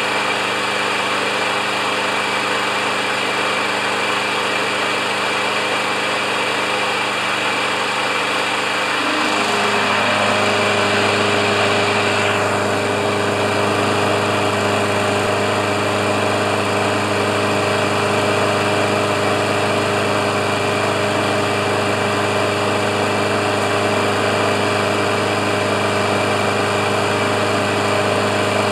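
Briggs & Stratton Quantum single-cylinder four-stroke engine on a Craftsman Gold push mower running steadily after a tune-up, its note shifting about nine seconds in and then holding steady.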